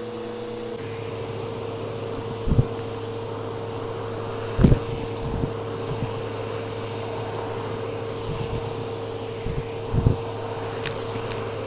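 Vacuum cleaner running steadily through a hose with a dusting-brush attachment, sucking small debris off carpet. Several short, sharp crunches and clatters stand out above the motor as bits go up the hose, the loudest about four and a half seconds in and again near ten seconds.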